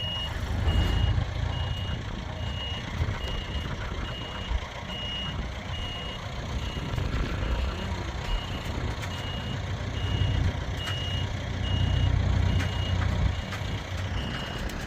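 A vehicle's backup alarm beeping steadily, a little faster than once a second, over the low rumble of a running engine, while equipment is being unloaded.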